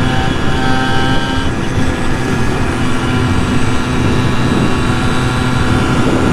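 Simson 50 cc two-stroke moped engines running flat out on the road, with wind rush over the microphone. A second, higher engine note drops out about a second and a half in.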